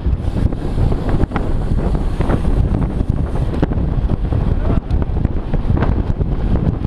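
Heavy wind buffeting on the microphone: a loud, steady low rumble, with a few faint short sounds over it.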